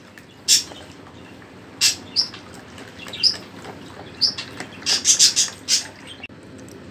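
Wire whisk beating a thin yeast-starter batter in a plastic bowl: irregular sharp clicks and scrapes of the wires against the bowl, with a quick flurry of strokes about five seconds in.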